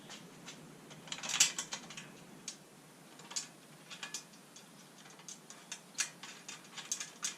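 Irregular light clicks and taps of a bolt and washer being handled and fitted to a plastic door insert panel, with a small cluster of rattles about a second and a half in.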